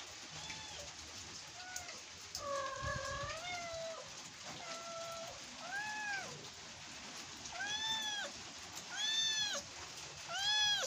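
A tabby kitten mewing again and again, about nine short, high, arching mews, with one longer, drawn-out meow about three seconds in. The mews come faster and louder near the end: a kitten calling for its mother because it wants to be helped down.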